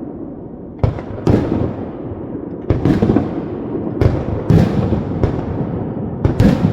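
Fireworks display: aerial shells bursting in a quick irregular series, about eight bangs, each trailing off in a rumbling echo.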